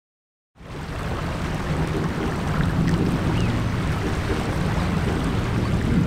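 Wind buffeting the microphone, over waves washing on the shore, cutting in suddenly about half a second in.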